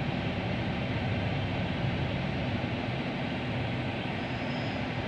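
Steady hum inside a Toyota Wigo's cabin while it sits stationary, its engine and air conditioning running.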